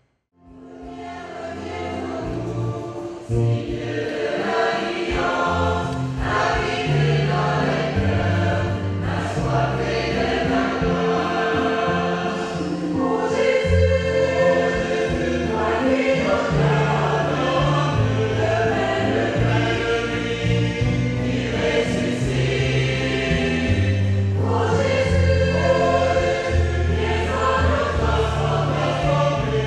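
Church choir singing a hymn with instrumental accompaniment and a moving bass line, fading in over the first two seconds.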